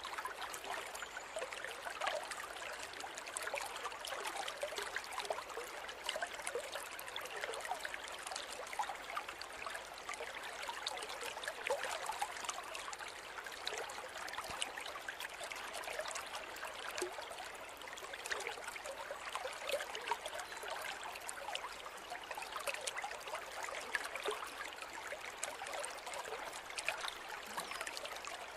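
A forest river or stream flowing and babbling, a continuous rush of water with many small splashes and gurgles.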